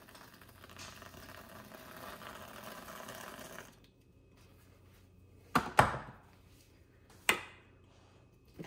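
Whipped cream dispenser spraying cream onto an iced drink with a steady hiss, stopping a little under four seconds in. It is followed by sharp knocks, two close together around six seconds in and a single one over a second later.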